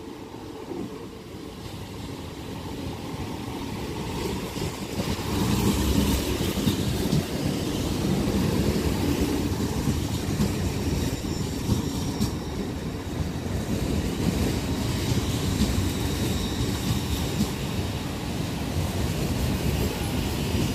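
A Hitachi Intercity Express Train, two units coupled, running into the station along the platform. It grows louder over the first six seconds or so as it comes close, then holds a steady rumble of wheels on rail as the carriages run past.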